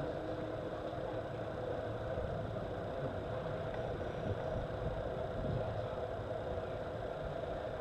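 A steady engine-like hum over an uneven low rumble, with no clear change.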